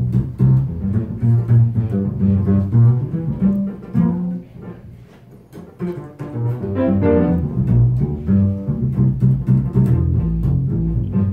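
Live jazz with a plucked upright bass carrying prominent low notes and higher instrument notes over it. The music drops off briefly about five seconds in, then picks up again.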